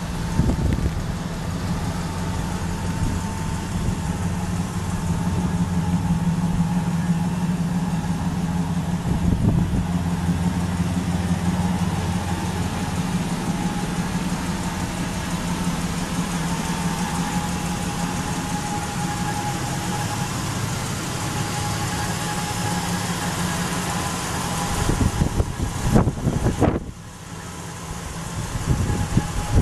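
A 2001 Dodge Ram 1500's 3.9L V6 engine idling steadily, with a faint thin whine above the engine hum. Near the end a few knocks break in and the sound briefly drops.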